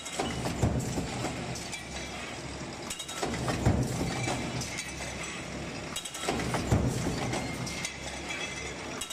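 Stamping press running a deep-drawing die on stainless steel frying pots, cycling about every three seconds. Each stroke is a surge of heavy thumps and metallic clatter over a steady low hum.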